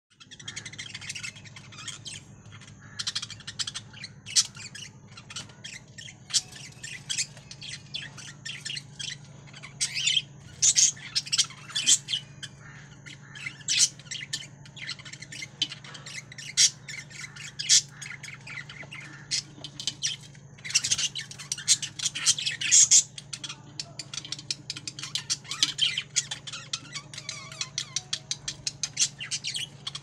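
Caged budgerigars chirping and squawking in a fast, continual chatter of short sharp calls, busiest about a third of the way in and again past the middle, over a steady low hum.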